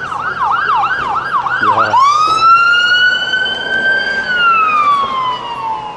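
Emergency vehicle siren: a fast up-and-down yelp for about two seconds, then a switch to a long wail that rises, holds for about two seconds and slowly falls.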